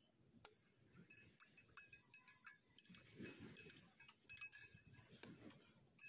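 Faint, repeated clinks of metal spoons against glass measuring jugs while stirring, each clink ringing briefly.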